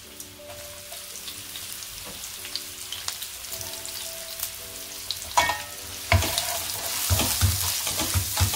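Chopped onions sizzling in hot oil, the sizzle growing louder; from about five seconds in a wooden spatula stirs them, scraping and knocking against the pan.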